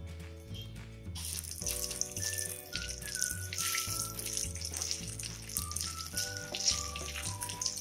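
Fennel seeds, a bay leaf and dried red chillies sizzling in hot oil as they are stirred, starting about a second in, over background music with a steady bass pattern and melody.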